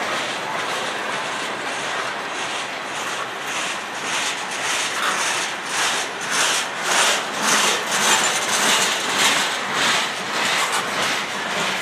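Freight cars rolling past close by: a steady rumble and hiss of steel wheels on rail, with a clickety-clack of wheels over rail joints. The clacks grow stronger from the middle on, coming about two a second.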